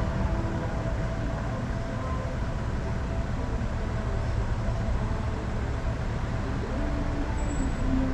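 Steady low rumble of a car engine idling while the car rolls slowly forward.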